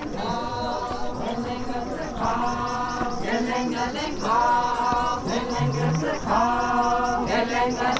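A group of Naga tribal dancers chanting a traditional song together in short repeated phrases. The chant grows louder about two seconds in.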